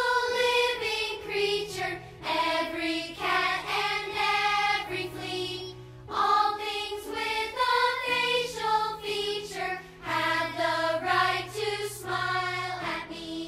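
Children's choir singing a school song together in phrases, over held low notes underneath.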